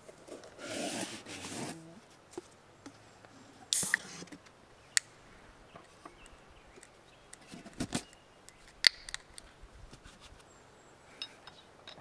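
An aluminium beer can being cracked open with a hiss, followed by several sharp clicks and knocks of things handled on a wooden table.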